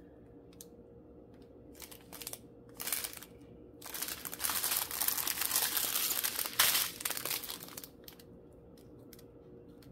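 Small plastic bags of square diamond-painting drills crinkling as they are handled and pulled apart. A few short crackles come first, then about four seconds of continuous crinkling, loudest near the end of that stretch.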